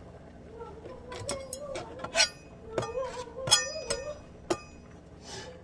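Hands peeling a garlic clove on a cutting board: a run of about seven sharp clicks and clinks as long fingernails pick at the peel and tap the board, the loudest about two and three and a half seconds in. A faint wavering background tune runs underneath.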